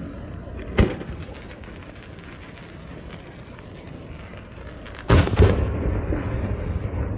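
A No. 5 aerial firework shell: a sharp thud as it is fired from the mortar, then about four seconds later a much louder burst high overhead, with a rumbling echo trailing after it. Crickets chirp steadily underneath.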